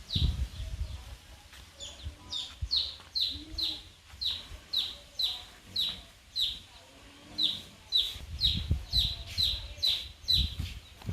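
A bird repeating a short, high chirp that falls in pitch, about two times a second and very evenly, with a low rumble near the start and again around eight seconds in.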